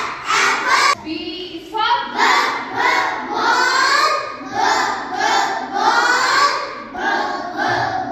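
A class of young children singing in unison in a steady sing-song rhythm, going through the phonic sounds of the alphabet.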